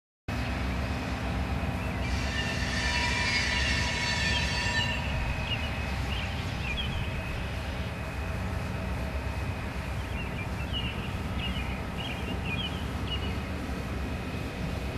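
CSX diesel locomotives running with a steady low rumble as they approach slowly. About two seconds in, a high squeal rings out for roughly three seconds.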